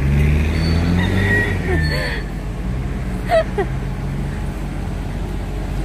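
A motor vehicle's engine running close by on the road, loudest in the first two seconds and then settling lower, with a brief high tone about a second in and a few faint voice fragments.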